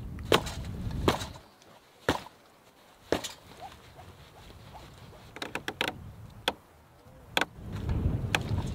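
Sharp wooden knocks and clicks, a dozen or so spread out with a quick cluster past the middle, as a pole is lashed with cord onto a raft of peeled logs and pressed down under a boot. A low rumble sits under the start and comes back near the end.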